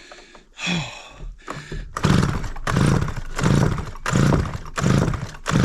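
Stihl 009L two-stroke chainsaw being pull-started over and over, the recoil starter cranking the engine in quick, even pulls about every 0.7 seconds without it firing. The owner takes it to be flooded from being left on choke.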